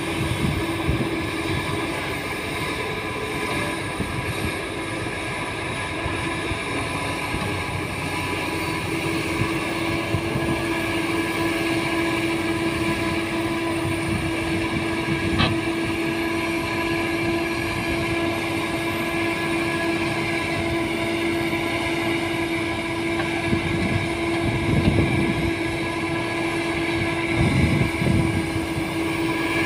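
Doosan DX225LCA crawler excavator's diesel engine running steadily with a constant hum while the bucket presses bamboo stakes into soft peat ground. The engine swells louder twice near the end as it works harder.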